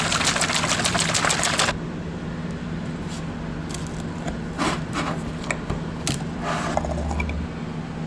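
Metal can of Varathane wood stain shaken hard, a fast dense rattle for about the first two seconds. Then a few separate clicks and metal scrapes as a can key pries the lid off, with a steady low hum underneath.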